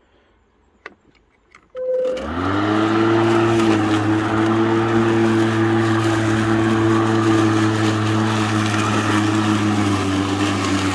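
Makita DLM382 cordless lawn mower's brushed 36 V motor and blade spinning up about two seconds in, rising in pitch and then running as a steady hum while it cuts long, rough grass. It stops suddenly near the end.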